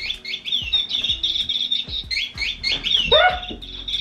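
Rapid, repeated electronic bird chirps from a chirping bird cat toy, over a steady beat of background music. A short rising cry cuts in about three seconds in.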